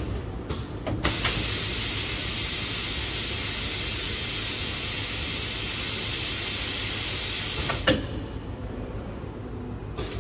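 Battery laser welding machine at work: a click about a second in, then a steady hiss of compressed gas from the welding head runs for about seven seconds during the weld pass and cuts off with a sharp click. A low machine hum runs underneath, with a few lighter clicks.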